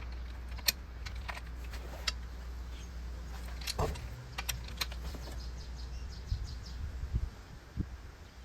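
Scattered sharp metallic clicks and clinks from a torque wrench and socket on cylinder head bolts, as the bolts are tightened one after another to their first torque value. A steady low hum runs underneath.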